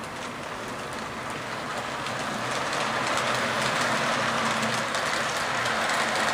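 Model train, a B&O-lettered diesel locomotive pulling freight cars, running on its track with a steady whirring, rushing rumble of motor and wheels on rail. It grows gradually louder as it comes closer.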